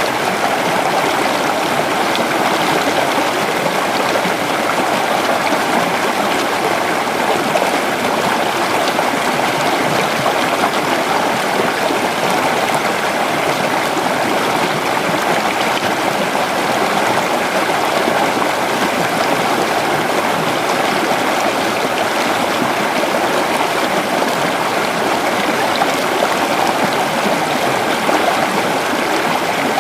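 Creek water rushing and babbling over rocks in a steady, unbroken flow.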